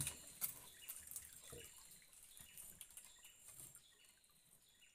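Faint handling of a wire-mesh fish trap at a wooden boat's side: a few soft knocks and drips, fading to near silence toward the end.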